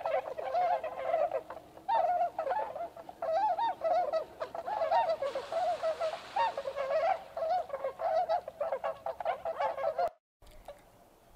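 A flock of swans on the water calling: a dense, overlapping chorus of bugling honks, with a soft rushing noise in the middle. It cuts off abruptly about ten seconds in.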